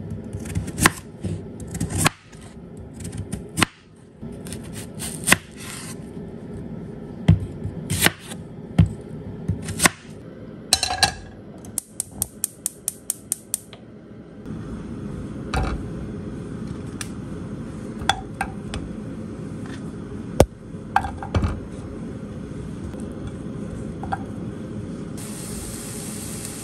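Chef's knife chopping a carrot on a wooden cutting board, a series of sharp knocks. Then a gas hob's igniter clicks rapidly and the burner lights with a steady hiss, and pieces of onion and carrot clunk down into a non-stick frying pan.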